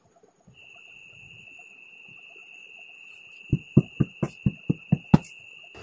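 Hands patting and pressing a folded cotton blouse piece flat on a cutting table, about eight quick, even pats in under two seconds, to transfer the chalk marks to the other half. A faint steady high whine sounds under them.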